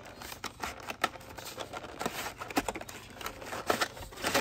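Cardboard sleeve and clear plastic blister tray of a die-cast car five-pack being pulled apart by hand. Irregular scraping and crinkling of card and plastic with sharp clicks, the loudest near the end.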